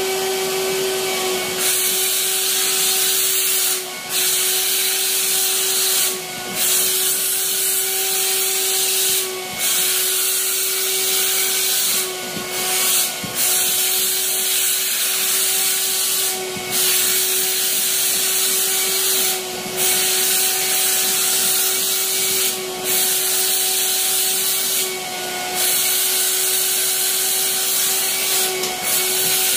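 Dry-steam cleaner jetting steam through its wand nozzle onto a mattress: a loud steady hiss over a steady machine hum, with the hiss cutting out for a moment about every three seconds as the trigger is released and pressed again.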